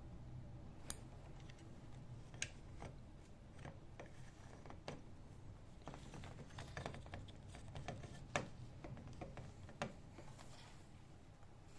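Irregular small clicks and taps of hand work on small parts, over a low steady hum.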